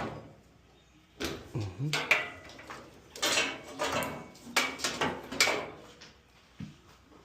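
A flat screwdriver prying on a dryer's clips and panels: a run of clicks, scrapes and clattering knocks from the metal and plastic parts, in three clusters across the middle of the stretch.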